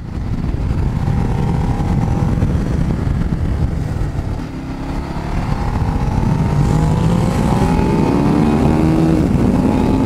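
Ducati Multistrada motorcycle engine under way on the road, its pitch climbing steadily from about halfway as the bike accelerates, over a heavy rush of wind noise on the camera microphone.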